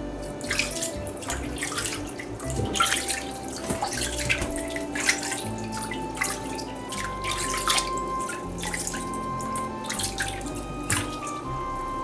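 Water splashing and pouring in irregular bursts over soft background music with held notes.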